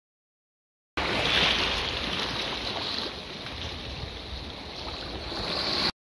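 Small sea waves breaking and splashing close around a phone held just above the water, a continuous rush of surf that swells, eases and swells again. It starts abruptly about a second in and cuts off abruptly just before the end.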